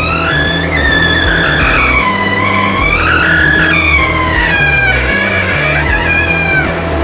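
Background music: a bass line stepping between notes under a lead melody that slides up and down in pitch.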